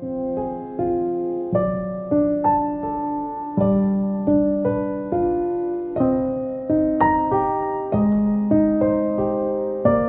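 Background music: a gentle solo piano melody, single notes and chords struck every half second or so, each fading as the next comes in.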